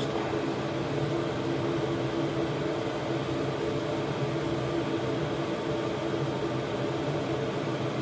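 A 5 kW diesel air heater running steadily at full output: an even mechanical hum, several steady tones over a constant hiss.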